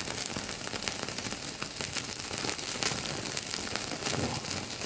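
Thin slices of beef sizzling on a wire grill over a small charcoal brazier: a steady hiss with many sharp crackles as the meat sears over open flames.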